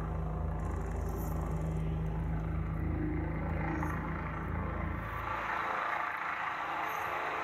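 Helicopter noise: a low, rapidly pulsing rumble with a steady hum above it. About five seconds in, the low rumble falls away and a higher rushing sound is left.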